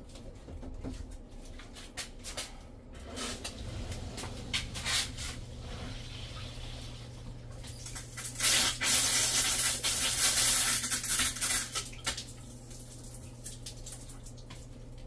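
Whole-house water filter housing being bled after the water is turned back on: light clicks early, a steady low hum sets in about four seconds in, then air and water hiss loudly from the housing's pressure-release valve for about four seconds as trapped air is purged from the line.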